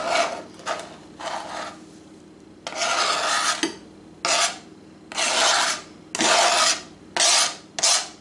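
Chef's knife blade scraping across a plastic cutting board, pushing chopped herbs off it into a bowl: a series of short rasping scrapes, about one a second.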